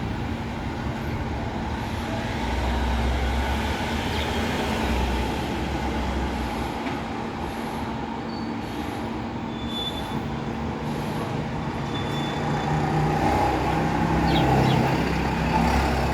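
Steady low rumble with a faint engine-like hum, growing louder near the end, and a few brief faint high chirps in the middle.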